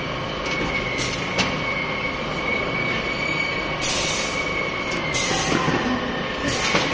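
LPG cylinder conveyor line running: a steady mechanical rumble with a thin, high, steady squeal. A couple of sharp clicks come in the first second and a half, and three short hisses in the second half.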